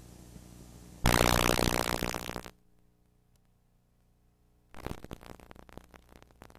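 VHS tape static: a faint hum, then about a second in a loud burst of hiss that fades out over a second and a half, and after a quiet stretch, crackling static near the end.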